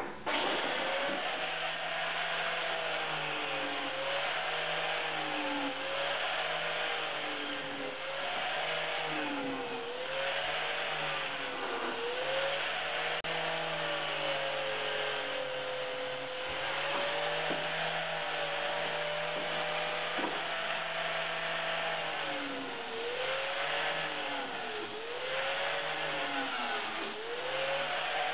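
Angle grinder cutting and grinding a steel tube, its motor running steadily with the pitch dipping again and again as the disc is pressed into the metal.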